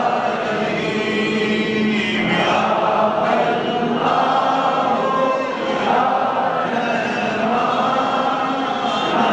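Many voices chanting together as a group, a steady unbroken devotional chant.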